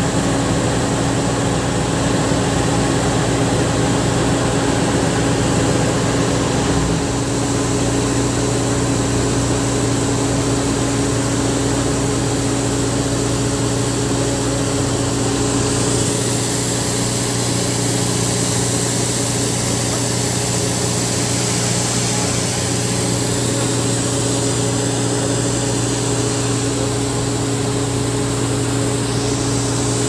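Fire truck engine running steadily: a constant low drone that holds the same pitch throughout.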